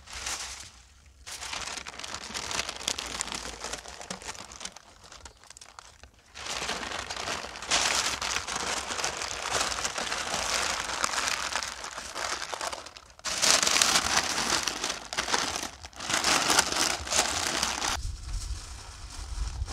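Baking parchment crinkling and rustling as it is scrunched and folded around a rack of veal, in several bursts with short pauses.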